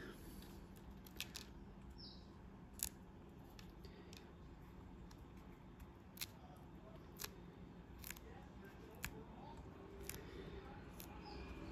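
Faint, scattered sharp clicks, about ten of them, from fingertips and fingernails handling a plastic scale model while blu-tac masking is peeled off its paint, over a low room hum.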